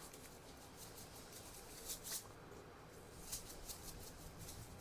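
Salt shaker being shaken over a pot in a few short, faint scratchy rattles, about two seconds in and again a little later; the salt isn't coming out well.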